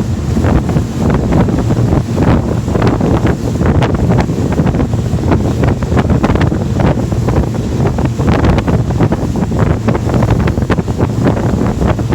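Wind buffeting the microphone on a power catamaran running at about 32 mph, with the steady drone of its twin Mercury 200 V6 outboards at around 4,000 RPM underneath.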